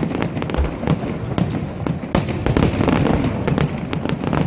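Aerial fireworks display: several shells bursting in the sky at once, making a dense, irregular run of bangs and crackles.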